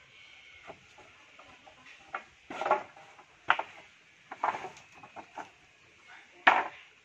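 Sawn waru-wood planks clattering against each other as they are handled and dropped onto a stack: a string of irregular wooden knocks, the loudest about two and a half and six and a half seconds in.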